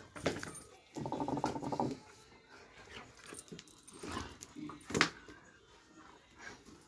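Doberman pinscher giving a drawn-out, low vocal sound about a second in, lasting about a second. Sharp knocks just after the start and about five seconds in, the second the loudest sound.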